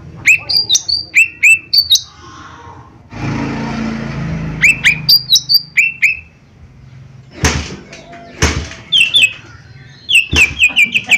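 Cucak ijo mini (small green leafbird) singing: runs of loud, sharp, down-hooked whistled notes, broken by a few harsh, rasping bursts, ending in a fast rattle of short repeated notes.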